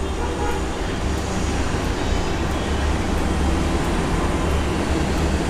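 Steady low rumble and hiss of kitchen background noise, even throughout, from around a gas stove with a pan of gravy on it.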